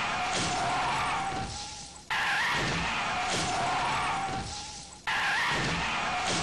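Car tyres screeching under hard braking, the same short screech replayed in a loop: it starts over abruptly about two seconds in and again about five seconds in, each time fading before it cuts off.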